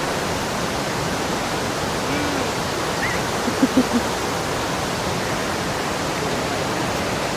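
Waterfall rushing steadily: a dense, even noise of falling water, with a few short, faint pitched blips about halfway through.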